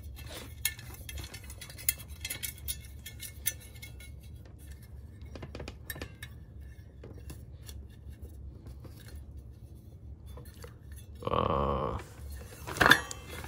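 Small clicks and clinks of hard metal and plastic parts being handled and screwed together while a soldering iron kit is assembled. A short pitched sound of under a second comes about eleven seconds in, and a sharper knock follows near the end.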